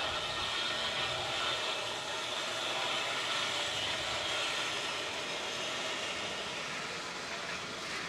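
Sky cycle's wheels rolling steadily along its overhead rope: a continuous rumbling whirr.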